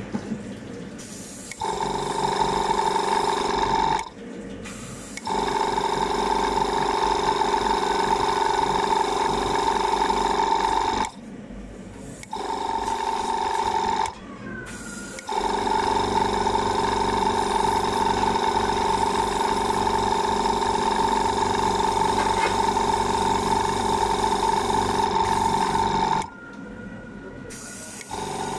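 Spray gun running with a steady hum, switched on and off in four spells, the longest about ten seconds, while spraying green colouring onto apple-shaped desserts.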